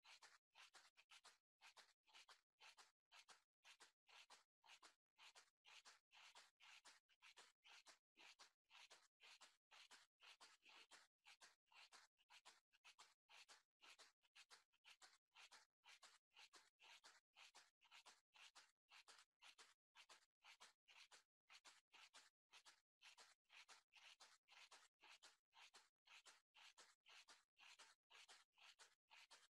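Near silence: a faint hiss that keeps cutting in and out, a couple of times a second.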